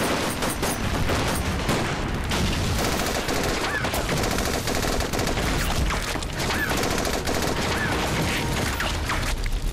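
Massed gunfire from many guns firing at once, shots overlapping without a break, with a few short whines rising and falling among them.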